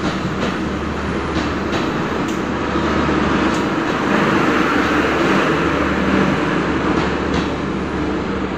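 A train of LHB passenger coaches rolling by on the track: a steady rumble with a low hum, wheel clicks over rail joints now and then, swelling in the middle and easing off near the end.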